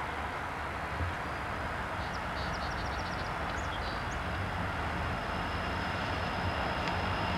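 Conrail diesel freight locomotives approach at slow speed under a slow order, their engines rumbling steadily and growing gradually louder. A quick run of short, high chirps comes about two to three seconds in.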